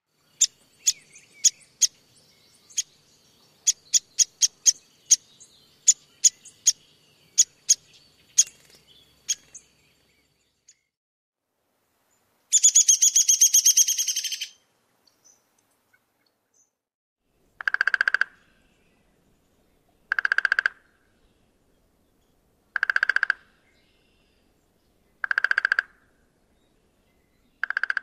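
Downy woodpecker sounds in turn. First, sharp single pick call notes repeated for about ten seconds. Then a rattling whinny call lasting about two seconds, then drumming in short bouts about two and a half seconds apart.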